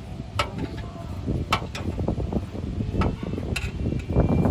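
Irregular metallic clicks and knocks from hand tools and a bolt being fitted to the exhaust heat shield under a car.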